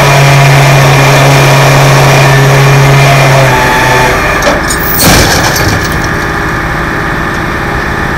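A motor vehicle's engine idling loudly, with a steady low hum that drops out about three and a half seconds in. A single sharp clunk sounds about five seconds in.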